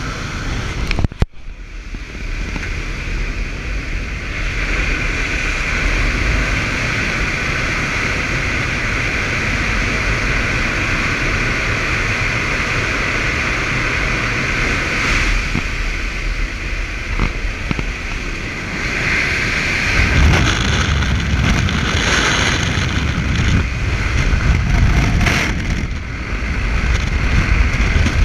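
Steady drone of a skydiving jump plane's engine and propeller heard inside the cabin with the jump door open, mixed with the rush of wind. A brief click comes about a second in. Over the last several seconds a low wind rumble grows louder and gustier as the jumpers go out the door.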